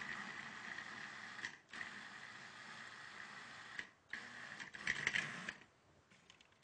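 Electric blender running in short pulses through a thick, coarse chickpea mixture: a steady motor whine that stops and restarts, three runs with brief pauses between, the last ending about five and a half seconds in.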